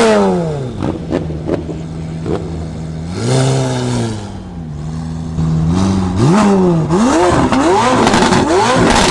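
McLaren 765LT's twin-turbo V8 being revved while parked. A rev at the start falls back to a steady idle, another rev comes about three seconds in, then a run of quick blips fills the last few seconds, with sharp pops between revs.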